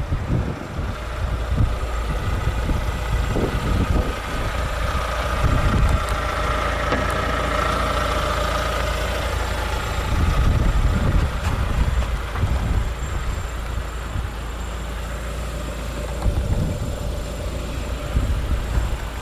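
Lada XRAY's 1.6-litre 16-valve inline-four idling steadily, with wind buffeting the microphone.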